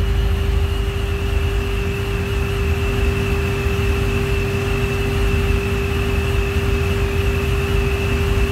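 Supercharged C7 Corvette's LT1 V8, fitted with a V7 YSI centrifugal supercharger, idling steadily: a deep, even rumble with a steady hum and a thin high whine held at one pitch.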